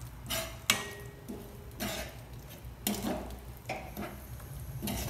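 Slotted steel spoon scraping and stirring thick onion-tomato masala frying in a stainless steel kadhai, with short scrapes and knocks of metal on metal about once a second.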